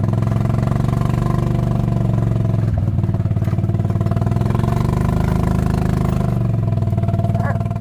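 A small engine running steadily and close by, its pitch dipping and rising slightly partway through.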